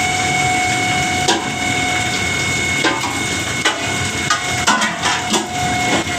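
Samsung microwave oven running with a noisy fan motor: a steady whine over a rushing hum, broken by irregular knocks and clicks. The repairer puts the noise down to dust and dirt settled in the fan motor, which needed greasing.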